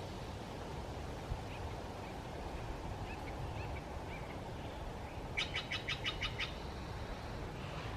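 A bird calling: a few faint chirps, then a quick run of about eight sharp notes about five seconds in, over a steady low outdoor rumble.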